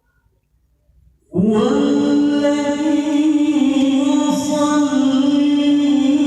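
Male qari reciting the Qur'an (tilawah), starting abruptly about a second in with one loud, long melodic note that he holds with slight wavering.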